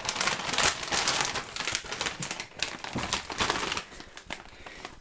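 Plastic crinkling and rustling as a plastic bag of frozen mini chicken fillets is pulled out of a plastic-lined shopping bag, loudest for the first few seconds and dying down near the end.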